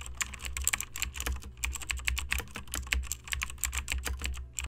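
Keyboard typing sound effect: rapid, irregular key clicks over a low steady hum, cutting off suddenly at the end, for on-screen text being typed out.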